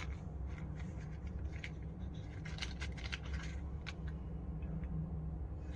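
Short scratchy clicks and rustles of a cardboard matchbox being handled and opened and a match being picked out, a few at a time, over a steady low hum.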